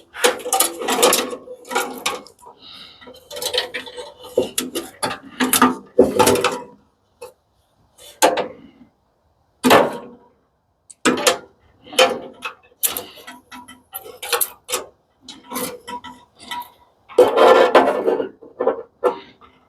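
Scrap metal parts and hand tools being handled during a teardown: irregular clinks, clicks and clatters, some with a short metallic ring, and a loud burst of clattering near the end.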